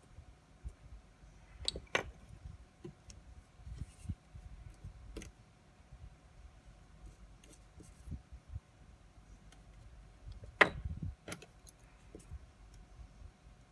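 Scattered small metallic clicks and taps of watchmaker's tools against the parts of a TITONI automatic watch during repair. The sharpest click comes about ten and a half seconds in.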